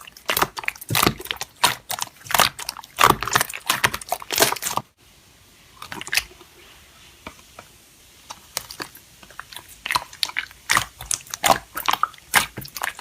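Crunchy slime being pressed and squeezed, giving rapid crisp crackles and pops. The crackling stops about five seconds in and starts again some three seconds later.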